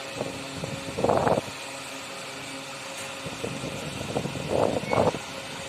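12 V 15 W box fan running on its third, fastest speed straight off a solar panel, a steady whirr of motor and airflow. Blurry bursts of air buffet the microphone about a second in and twice near the end.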